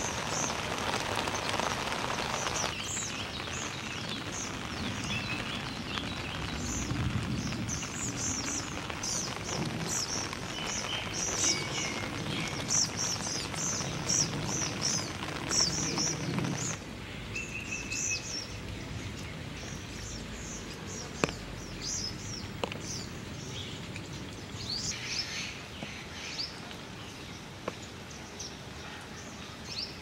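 Steady rain falling on foliage, with small birds chirping repeatedly in short high notes over it. The rain sound changes abruptly about three seconds in and again partway through, and a few sharp ticks come in the second half.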